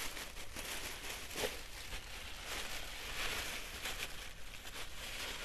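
Faint rustling and crinkling of a bag being handled, with small scattered clicks.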